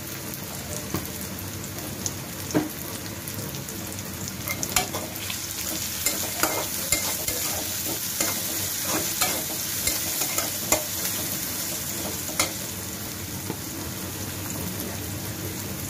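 Sliced onion and garlic sizzling in soybean oil in a kadai, with a steady hiss. A spatula scrapes and clicks against the pan as it is stirred, with most of the knocks in the middle stretch.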